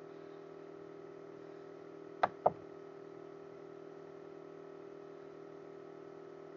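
Two sharp computer-mouse clicks about two seconds in, a quarter second apart, over a faint steady hum.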